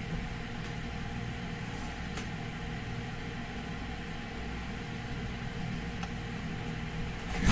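Steady low mechanical hum of room or equipment background noise, with a few faint clicks.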